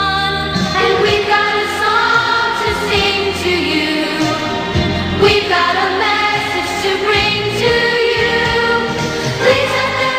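Music: a song with singing over instrumental backing.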